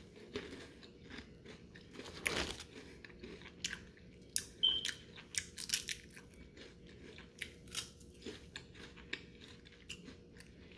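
Bites and chewing of a crisp saltine cracker coated in seasoned oil: short, irregular crunches spread throughout, still crisp and not soggy.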